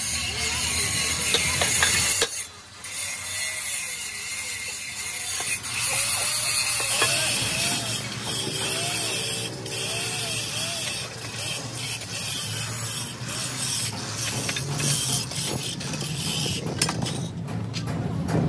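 Metalworking machinery: a steady high hiss with rapid clicking, and through the middle a squeal that rises and falls about once a second.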